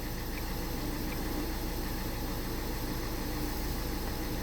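Renault 1.5 dCi four-cylinder diesel engine idling steadily and evenly, running smoothly with no misfire now that the faulty cylinder 1 injector has been replaced.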